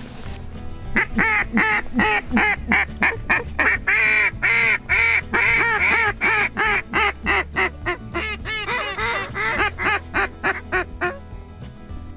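Hand-held duck call blown in a long calling sequence: a rapid string of loud, short quacks, about four or five a second, that stops about a second before the end.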